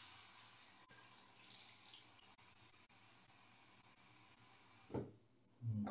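A steady rushing hiss starts suddenly and cuts off after about five seconds, with a few faint ticks in it.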